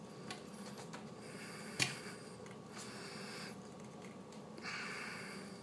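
Faint handling sounds of half-inch PVC pipe being twisted and pushed into a brass Gatorbite push-to-connect fitting: a single click about two seconds in, and two soft rasping stretches later on.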